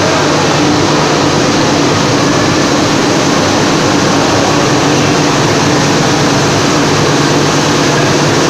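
Extrusion coating lamination plant running steadily: a loud, unchanging mix of motor hum and rushing blower and roller noise.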